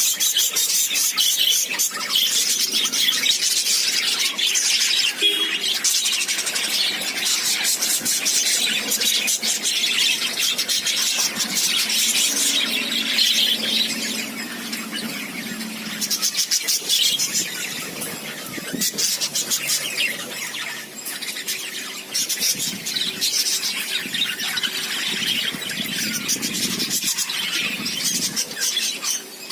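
Birds chattering and calling without a break, shrill and high-pitched, a little quieter in the second half.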